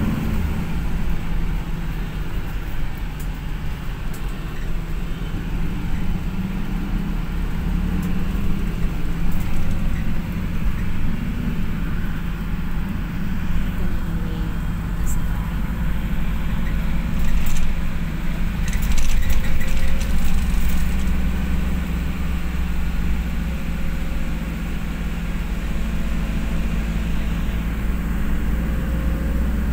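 Steady low engine and road rumble heard inside a moving minibus cabin, with a few brief clicks or rattles about two-thirds of the way through.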